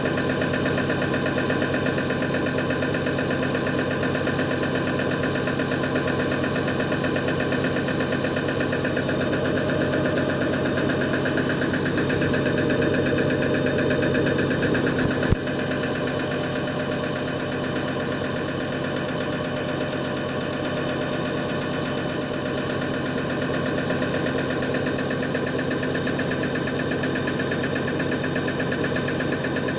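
Common rail injector test bench running: its drive motor turning the CP1 high-pressure pump while injector 0445116022 is fired, a steady mechanical hum with a fixed pitch. A sharp click about halfway through, after which it runs a little quieter.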